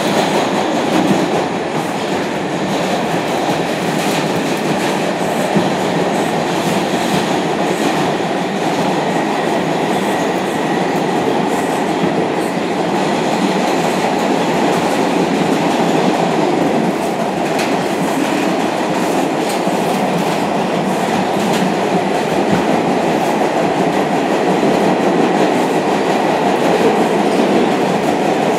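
R142 subway car running at speed, heard inside the car: a steady, loud rumble of steel wheels on rail with scattered faint clicks.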